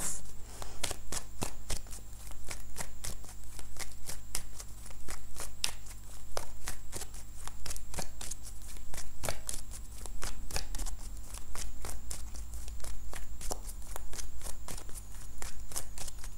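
A deck of cards being shuffled by hand: a continuous run of quick, irregular clicks and slaps as the cards are pushed through, several a second, over a steady low hum.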